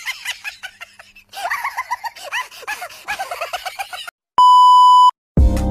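Comic sound effect of quick, high-pitched rising squeals, several a second. About four and a half seconds in, a loud steady electronic beep tone lasts under a second, and music starts just at the end.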